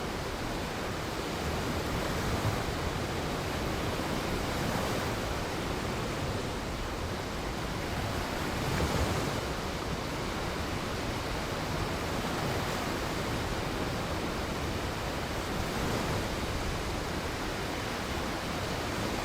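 Shoreline ambience: a steady wash of surf with waves swelling and breaking gently, one slightly stronger surge about nine seconds in.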